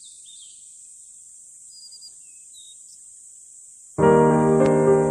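A faint, steady high-pitched hiss with a few small chirps. About four seconds in, background piano music starts suddenly and is much louder.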